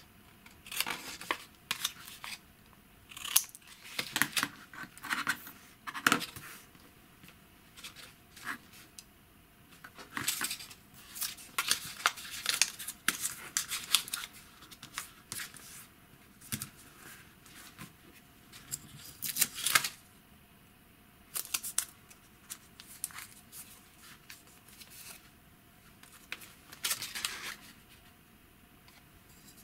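Scissors snipping through thick paper in a string of short, crisp cuts, densest in the first half, with the paper rustling and crackling as it is handled and folded between cuts.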